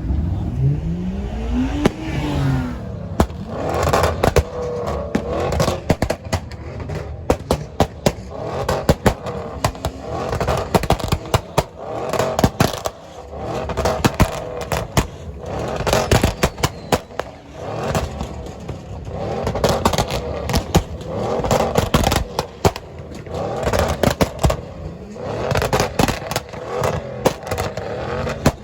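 Fireworks going off in rapid strings of sharp bangs and crackles, with a car engine revving up briefly at the start.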